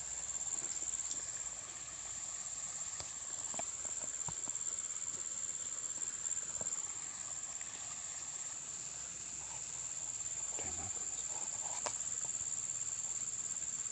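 Steady, high-pitched chirring of insects, with scattered small clicks and knocks.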